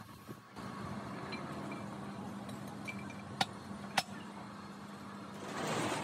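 Two sharp metallic clinks about half a second apart as a steel pin is worked into the bushed bore of an excavator link, over a steady low hum. A brief rushing noise swells near the end.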